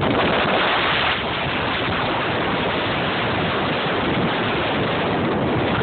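Steady rushing wind noise on the phone's microphone.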